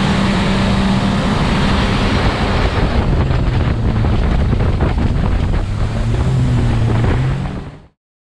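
The 250-horsepower outboard of a bass boat running at speed, under loud wind buffeting the microphone and water rushing past the hull. The engine note drops slightly partway through, and all the sound fades out suddenly near the end.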